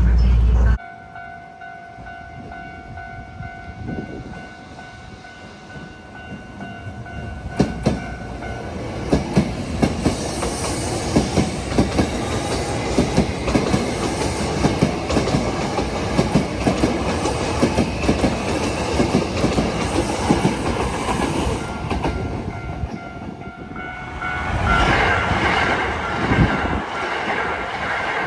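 A Hankyu electric train passing over a level crossing, its wheels clicking over rail joints in a regular rhythm for about fifteen seconds, with steady warning tones from the crossing bell before the train arrives and again near the end.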